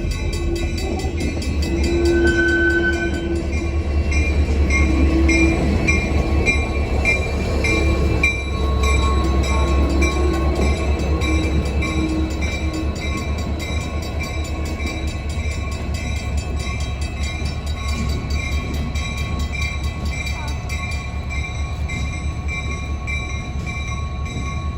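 Diesel locomotive running with a steady low rumble. Its bell rings at about two strikes a second and fades out after about eighteen seconds, with a few short horn notes in the first half.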